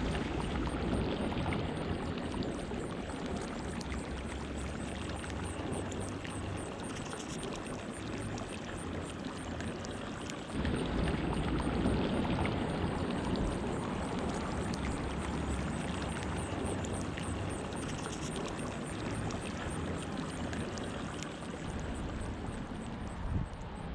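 Wind rush over the microphone while riding a motorcycle, with the engine's low drone underneath that shifts in pitch a few times, and a louder gust about ten seconds in.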